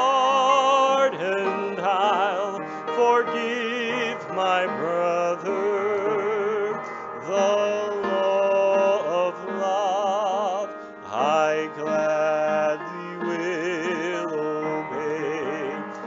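Hymn music: a melody of held notes with wide vibrato and occasional slides, over sustained accompaniment.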